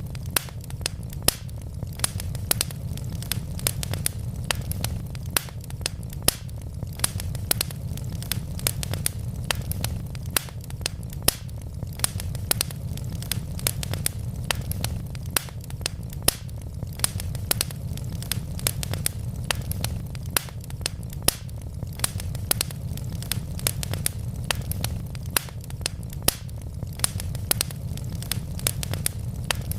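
Wood fire burning in a fireplace: dense, sharp crackling over a steady low rumble, with a louder pop every few seconds.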